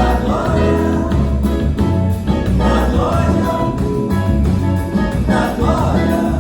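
Live band playing a Brazilian song: a steady, strong bass line under a wavering lead melody that comes in short phrases.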